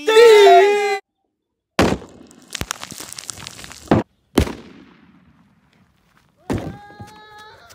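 A large firecracker explodes under a plastic water tank: a sharp bang about two seconds in, crackling, then two more sharp bangs around four seconds. A last hit comes near the end with a brief ringing tone.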